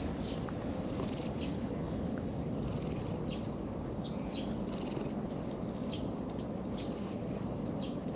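A plump orange-and-white domestic cat purring steadily while its head is stroked, a close, low rumble.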